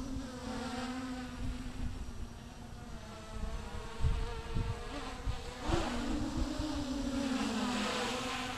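Armattan CNC 258 quadcopter's four motors and propellers buzzing in flight, the pitch rising about six seconds in and sliding down near the end as the throttle changes. A few short low thumps sound under it.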